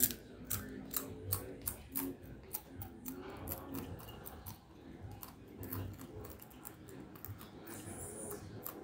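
A child chewing crunchy Red Hots snacks close to the microphone: a run of sharp crunches, a couple a second, thinning out towards the end.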